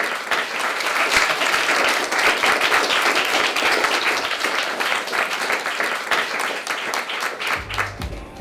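Audience applauding, a dense clatter of many hands clapping that thins out near the end. Music starts in just before the end.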